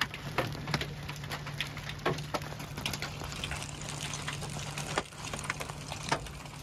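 Hailstones and rain striking the vehicle: irregular sharp taps and cracks, several a second, over a steady hiss of rain.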